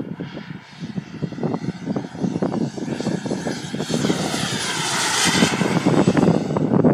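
Jet Central Rhino model jet turbine in a Comp ARF Eurofighter Typhoon, whining louder as the model makes a fast low pass, loudest about five seconds in. Wind buffets the microphone throughout.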